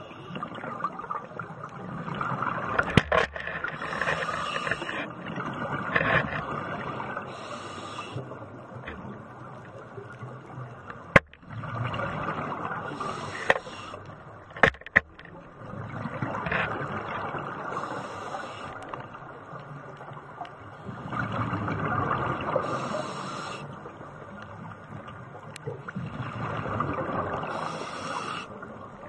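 Scuba diver breathing through a regulator underwater: bubbly exhalation bursts roughly every four to five seconds over a steady underwater hiss, with a few sharp clicks.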